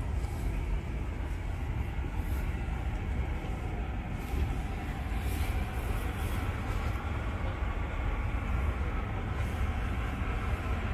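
Steady low rumble of indoor shop background noise, with no single distinct sound standing out.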